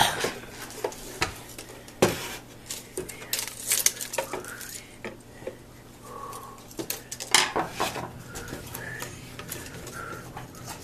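Scattered clicks, knocks and clatter of hands handling a Singer Graflex Study Mate II filmstrip viewer: its plastic case being turned over and set down, and a screwdriver and metal lamp reflector being worked at its lamp housing. The sharpest knocks come at the start and about two and seven and a half seconds in.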